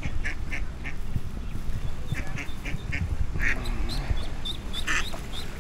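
Mother duck quacking, a string of short calls that come in small runs of two or three.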